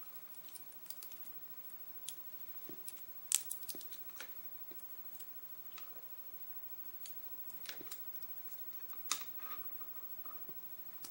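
Scattered small metallic clicks and taps of tools and parts handled on a Sargent lock cylinder being taken apart, loudest about a third of the way in and again near the end.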